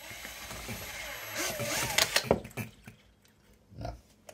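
Miniature Baker Monitor hit-and-miss petrol engine spluttering: a rising hiss breaks into a few irregular pops about two seconds in, then dies away. The engine is running badly and cutting out.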